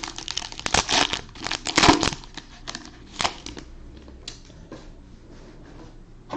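A trading-card pack wrapper being torn open and crinkled, with dense crackling for the first couple of seconds, then occasional rustles that thin out.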